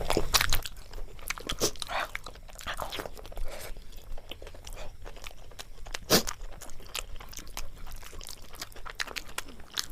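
Close-miked chewing and biting of a meal of polao, mutton curry, paratha and raw onion, with crunchy bites and many short irregular mouth clicks; one sharp click about six seconds in.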